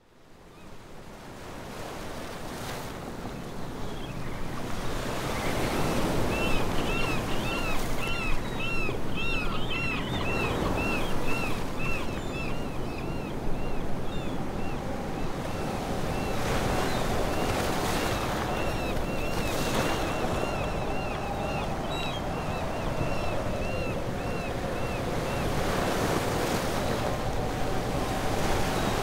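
Sea waves washing with wind, fading in at the start. Over it a seabird calls again and again in short, arched notes, about three a second, in two long runs.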